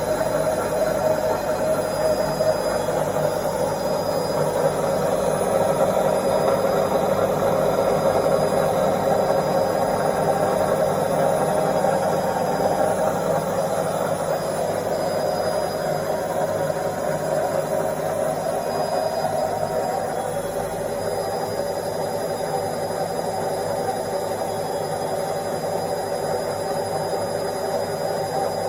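Indesit washing machine on its spin cycle, the drum spinning with a steady whirring hum that eases slightly about two-thirds of the way through.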